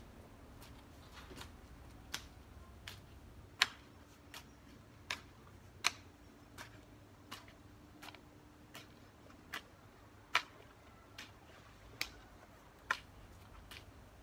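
Garden hoe chopping into soil in a steady working rhythm: a sharp strike about every three-quarters of a second, some hits louder than others.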